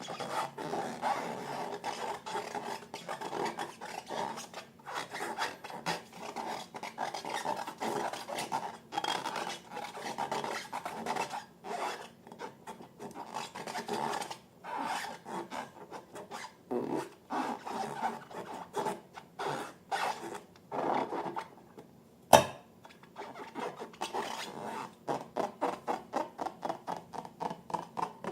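Slime being squished and stretched by hand: a run of short sticky crackles and squelches that settles into a quick rhythm near the end. One sharp, loud click falls about two-thirds of the way through.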